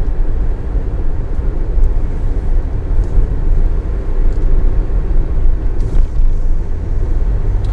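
Steady low rumble of a car driving along at speed, heard inside the cabin: road and engine noise, heavy in the bass and without any distinct events.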